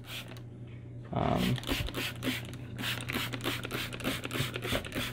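Hand trigger spray bottle pumped rapidly, a quick run of short spritzes at roughly four a second starting about a second in, misting water onto larval substrate to moisten it.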